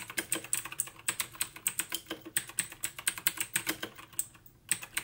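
Typing on an Aukey KM-G6 mechanical keyboard with clicky blue switches: a fast, irregular run of loud clicks, with a brief pause about four and a half seconds in.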